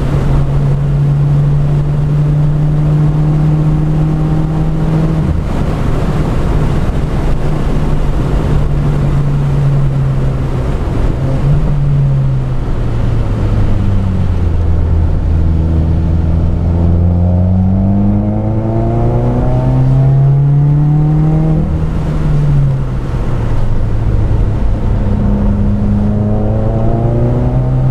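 Turbocharged flat-four engine of a modified 2015 Subaru WRX running hard on track, heard from inside the cabin over tyre and road noise. The engine note holds steady, drops about twelve seconds in as the car slows for a corner, then climbs again as it accelerates, with another dip and climb near the end.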